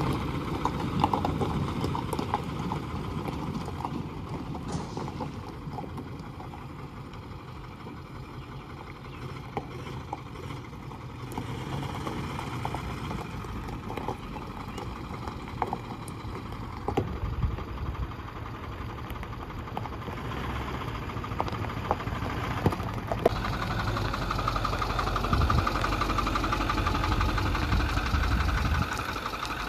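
Ford F-450 dually pickup's engine running as the truck drives slowly around a gravel lot, with scattered crunching clicks. The engine rumble grows louder over the last several seconds as it runs close by.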